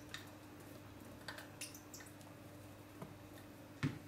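Faint, scattered clicks of kitchen utensils and glassware being handled, with a duller knock near the end, over a faint steady hum of room tone.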